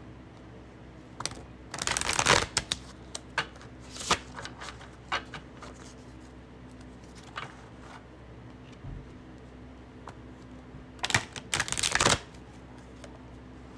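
A tarot deck being shuffled by hand: two short bursts of shuffling, about two seconds in and again near the end, with scattered soft card taps and rustles between.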